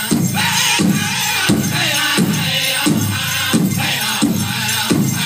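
A powwow drum group singing a chicken dance song over a steady beat on the big drum, about three beats every two seconds. The bells on the dancers' regalia jingle along with it.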